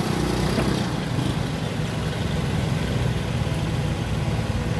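A steady, low engine hum, as of a motor vehicle idling, running evenly with no change in pitch.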